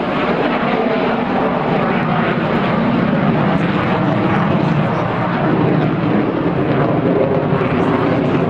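Avro Vulcan delta-wing bomber's four Rolls-Royce Olympus jet engines running loud and steady as it climbs away, growing a little louder about three seconds in.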